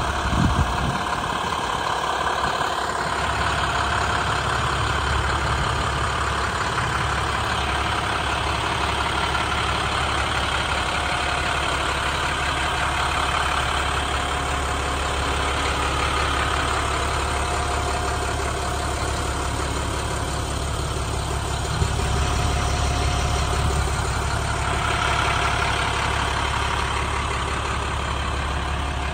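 MaxxForce DT turbo diesel of an International 7300 truck idling steadily.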